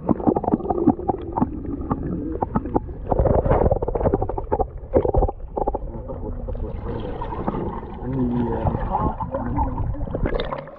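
Muffled underwater sound picked up by a submerged action camera: water gurgling and rushing against the housing, with irregular knocks in the first half.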